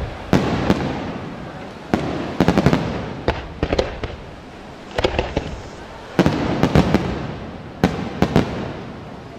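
Aerial firework shells bursting in a series of sharp bangs, some single and some in quick clusters of three or four, each bang trailing off in a fading echo.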